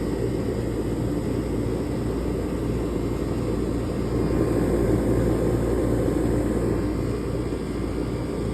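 Outdoor air-conditioning condensing unit running steadily, with its condenser fan whooshing and its newly installed compressor humming, while it is being charged with R-407C refrigerant.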